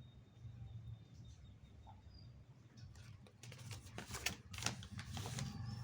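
Faint low hum, then a run of sharp clicks and taps starting about three seconds in.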